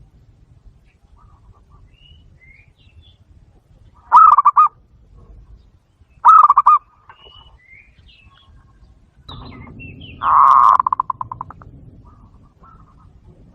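Zebra dove calling: two short rapid trills about two seconds apart, then a longer, loudest trill whose pulses trail off. Faint chirps of other small birds sound between the calls.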